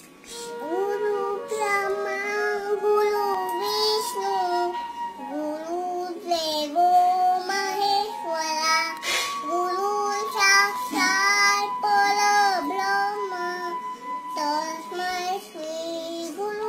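A toddler girl singing a song in a high child's voice, holding and bending melodic notes.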